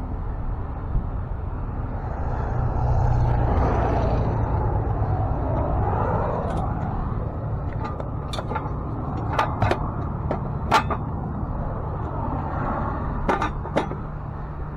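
Tow truck's engine running steadily. A few seconds in the noise swells for a while, and after that there is a run of sharp metal clanks and clicks.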